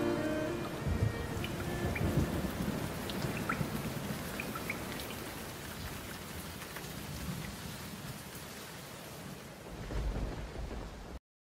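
Steady rain with low rolls of thunder, rumbling about a second in and again near the end, with scattered drops ticking. The last notes of violin music fade away at the start, and the rain cuts off suddenly just before the end.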